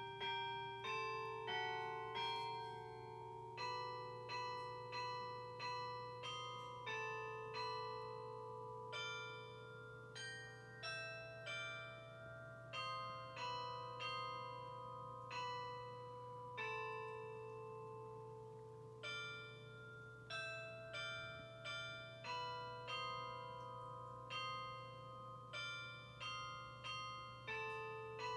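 Schulmerich Basilican III DSP digital carillon playing a hymn melody in its TrueCast cast-bell voice through a loudspeaker: single bell notes struck about one a second, each ringing and fading, over a steady low hum.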